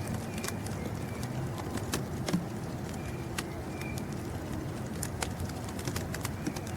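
Birds giving a few brief, high chirps over a steady low rumble, with many short sharp ticks scattered throughout.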